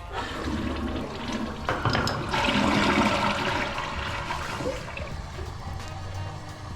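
Newly installed Glacier Bay toilet flushing: water rushes into the bowl, swells about two seconds in, then eases off into the quieter refill.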